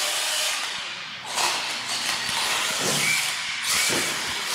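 R/C monster truck driving across a concrete floor, its motor and drivetrain whirring in surges about a second apart as the throttle is worked.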